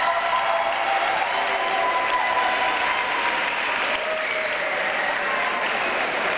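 Audience clapping steadily, with a few voices calling out over the applause.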